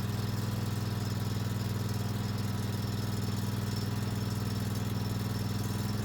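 Kawasaki FS600V V-twin engine running smoothly with a steady hum on its newly installed replacement carburetor.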